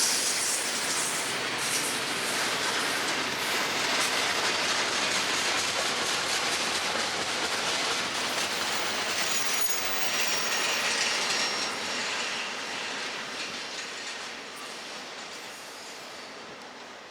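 Loaded freight train cars rolling past on the rails, the wheels clacking over the rail joints, with a faint high wheel squeal about two-thirds of the way in. The sound fades over the last few seconds as the train moves away.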